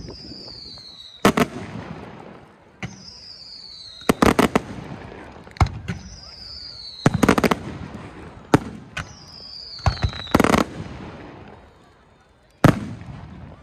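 Aerial fireworks display: shells bursting with sharp bangs in clusters about every three seconds, each cluster preceded by a whistle that falls in pitch for about a second. A last single bang comes near the end.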